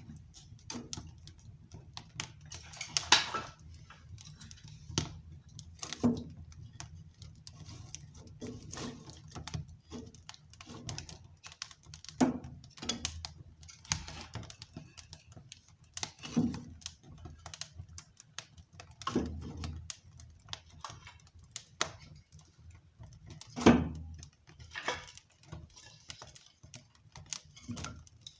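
Wood burning in a homemade rocket stove, crackling and popping: irregular small snaps with a few louder pops, over a low steady hum.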